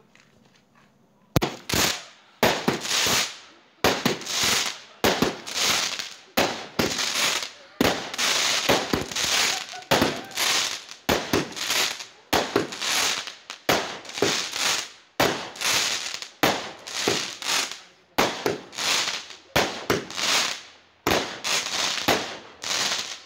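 Fireworks going off in a rapid barrage: sharp bangs about one or two a second, each trailing off with a short crackle. It starts about a second in and stops abruptly near the end.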